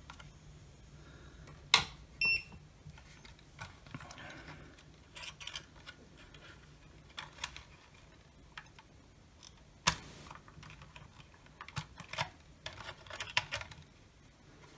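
Scattered sharp plastic clicks, taps and light rustling as a small circuit board is worked loose and lifted out of a plastic projector housing, with a short electronic beep about two seconds in.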